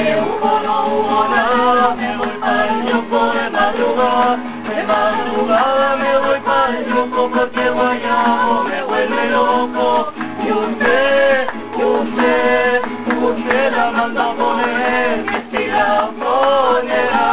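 Acoustic guitar strummed as accompaniment to people singing a song.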